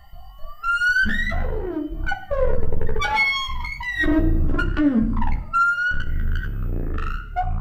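Ultrasonic acoustic-feedback instruments, crumpled aluminium-foil forms ringed by gooseneck transducers, with their feedback tones modulated down into hearing range. A quiet wavering tone gives way about a second in to loud electronic tones that swoop down in pitch again and again over a low rumble, with short breaks between the swoops.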